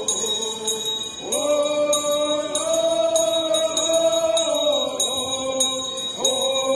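Several men singing a prayer blessing song in unison, long held notes that slide between pitches, over a steady jingling beat about twice a second.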